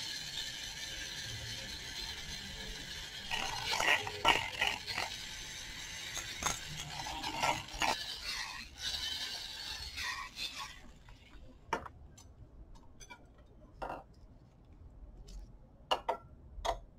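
Small handheld electric blender whirring in a glass beaker, emulsifying the oil and water phases of a cosmetic cream, with now and then a click as it knocks the glass. About eleven seconds in it stops, and a glass thermometer clinks lightly against the beaker a few times.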